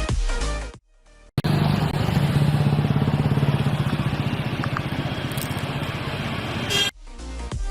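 A motor vehicle engine running steadily with a fast, even low pulse for about five seconds, set between stretches of electronic dance music that break off briefly just before it starts.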